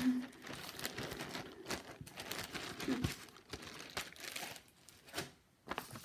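Clear plastic zip-lock bag crinkling and rustling in irregular bursts as it is handled, with a brief pause near the end.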